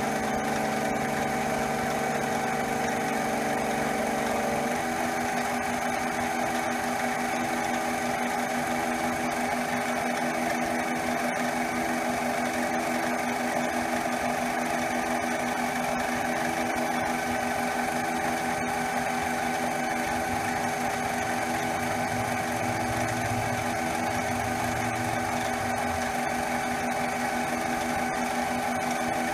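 CNC mini lathe running steadily, its spindle motor and drive whining while stepper motors hum as they feed a 2-flute end mill into aluminium to bore it. The lower hum changes pitch about five seconds in, as the feed changes.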